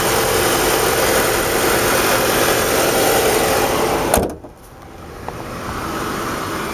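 The Sonata Hybrid's 2.4-litre four-cylinder petrol engine runs steadily, having just started on its own from electric mode. About four seconds in there is a thud, and the engine becomes suddenly much quieter, as when the hood is shut over it.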